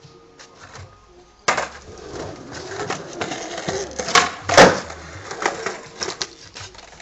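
Skateboard on paving slabs during a flatground trick: wheels rolling and clicking over the slabs, then two sharp cracks of the board a little past four seconds in, the second the loudest, and smaller knocks as it rolls on.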